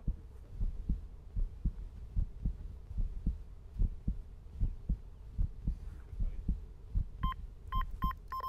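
Low, dull pulses a few times a second, then near the end an electronic carp bite alarm beeping: several short beeps and then a longer held tone, a fish taking line on the rod.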